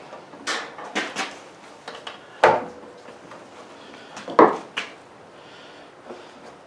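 Hard clunks and clacks of lawnmower parts being handled during repair work, about six separate knocks. Two louder ones come about two and a half and four and a half seconds in.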